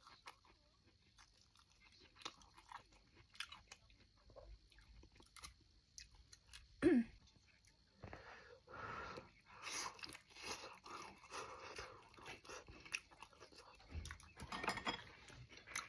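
Close-up chewing and biting of air-fried Orleans-style chicken thigh: wet mouth sounds and small clicks and smacks, which get denser from about eight seconds in. About seven seconds in there is one short, loud sound that falls in pitch.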